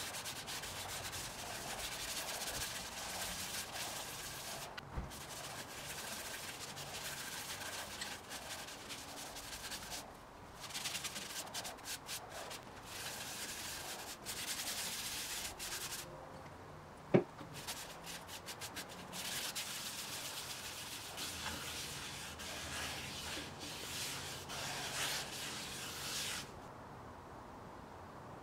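Paper towel rubbing finishing oil onto a thin wooden bowl spinning on a lathe: a steady hissing rub that comes in stretches with short breaks. One sharp click about seventeen seconds in is the loudest sound, and the rubbing stops near the end.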